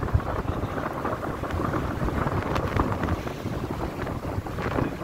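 Wind buffeting the microphone aboard a moving boat: a steady, rumbling rush of noise.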